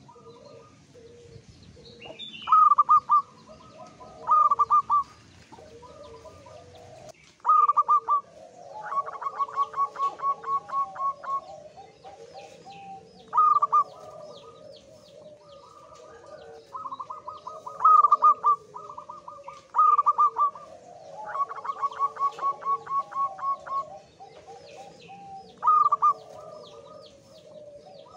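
Male zebra dove (perkutut) singing: repeated cooing phrases of a few strong notes, several running on into a fast series of short even notes about four a second, given every few seconds. It is a male in high breeding condition.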